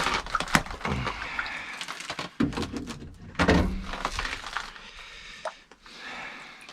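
Scattered knocks, thuds and clatter from pulling a burbot up through the ice hole and landing it, several sharp knocks in the first few seconds and quieter handling noise after.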